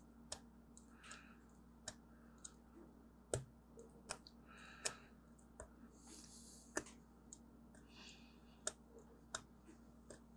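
Faint, irregular clicks and short scratches of a small metal tool picking and scraping at hardened glue inside an opened original iPhone, about a dozen sharp ticks spaced unevenly.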